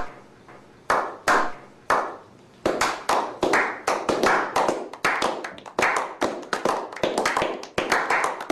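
A slow clap that builds: a few single hand claps spaced about a second apart, then from about two and a half seconds in several people join and the claps come fast and overlapping as group applause.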